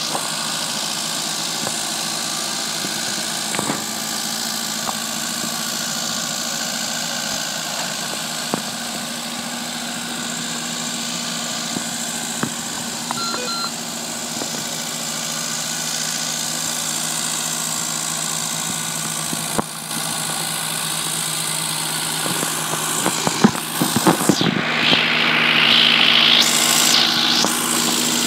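Ford 8N tractor's 2.0 L four-cylinder flathead engine idling steadily. It grows louder near the end, with a few clicks.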